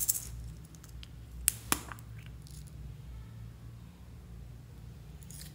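Small plastic containers being handled: a brief rattle at the start, then two sharp plastic clicks about a second and a half in, a quarter second apart.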